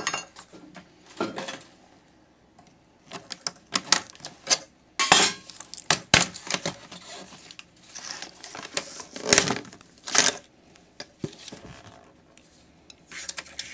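Clinks, knocks and clatter of small metal and plastic parts being handled and pulled apart while an iMac is dismantled, coming in irregular clusters with short gaps between.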